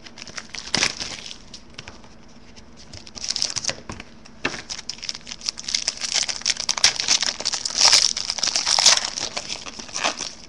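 Shiny foil wrapper of a trading-card pack being torn open and crinkled by hand, in irregular bursts of crackling with short pauses, busiest about six to nine seconds in.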